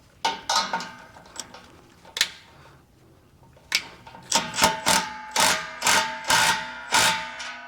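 Hand ratchet snugging down exhaust clamp and bracket bolts. A few separate clicks come first, then from about halfway a steady run of ratchet strokes, about two a second, each with a metallic ring.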